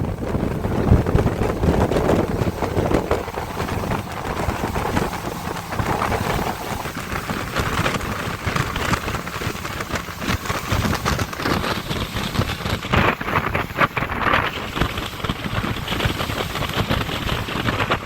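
Wind buffeting the microphone over the steady rush of a small boat moving across the water.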